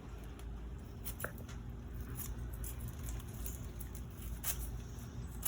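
Live crawfish stirring in an opened sack: a scatter of small irregular clicks and rustles as their shells scrape against each other and the bag.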